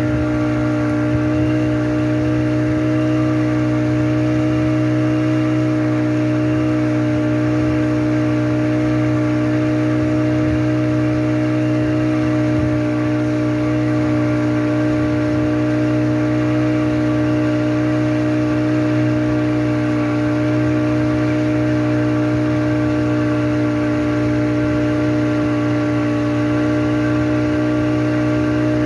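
Towing speedboat's engine running at a steady cruising speed: a loud, constant drone that holds one pitch with no rise or fall.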